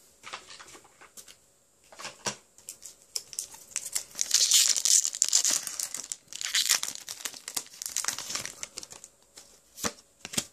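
Foil Pokémon booster pack wrapper crinkling as it is handled and torn open, in two louder stretches around the middle, with a few sharp crackles.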